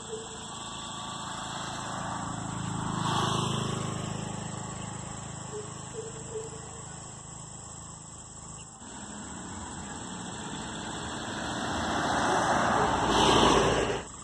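Road traffic: a vehicle passes, its tyre and engine noise swelling to a peak about three seconds in and then fading. A second vehicle builds up toward the end and cuts off suddenly.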